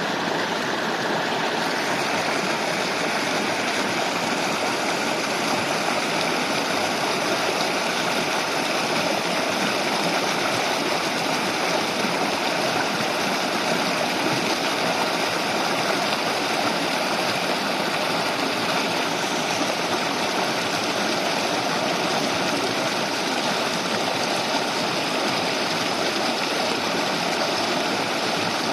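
A shallow mountain stream babbling steadily over stones.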